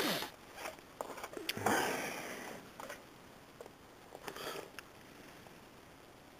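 A person breathing and sniffing close to the microphone: three short, airy breaths, with the longest about two seconds in, and a few faint clicks between them.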